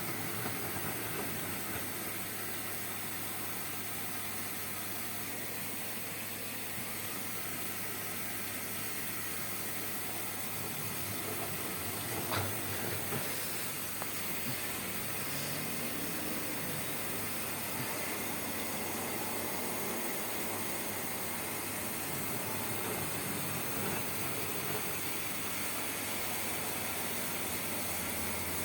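LG 6 kg washing machine running, a steady hiss over a constant low hum, with one sharp click about twelve seconds in.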